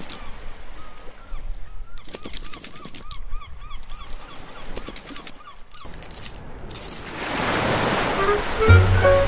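Cartoon sound effects: a quick string of short squeaky chirps with light clicking taps, then a wave rushing in with a rising hiss, and music begins near the end.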